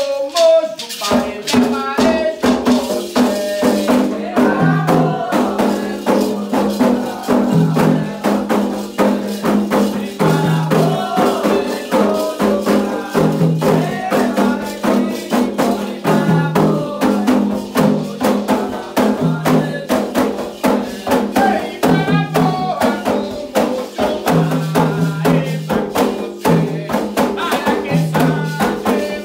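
Candomblé ritual music: a steady, fast rhythm of percussion with a rattle-like shaken sound, under singing voices.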